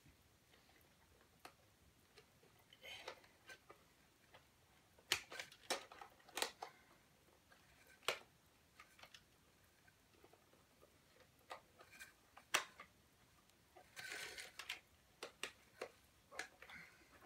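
Scattered sharp plastic clicks and taps as a toy figure is worked into a plastic toy excavator's cab, with a brief rustle near the end.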